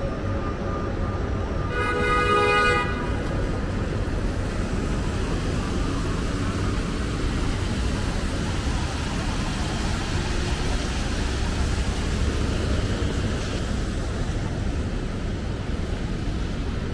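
A vehicle horn honks once, a single pitched blast of about a second, about two seconds in, over steady city traffic noise.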